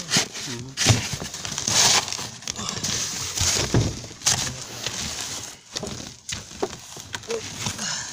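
Snow shovel scraping and crunching through packed snow in several separate strokes.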